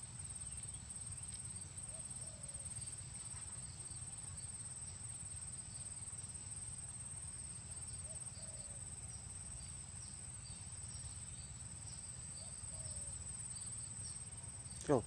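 Crickets trilling in one steady high-pitched note over a low background rumble. A few faint short chirps come through. Just before the end, a brief loud sound sweeps down in pitch.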